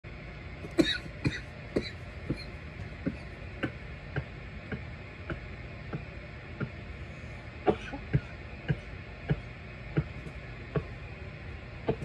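A person coughing repeatedly after smoking from a bong: short, sharp coughs about every half second, the loudest about a second in and around eight seconds in. Steady background hiss underneath.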